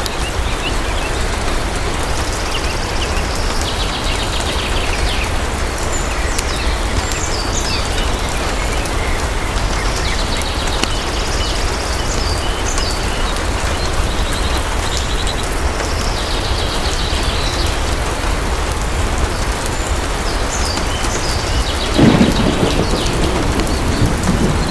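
Steady heavy rain pouring, with a roll of thunder rumbling in suddenly near the end.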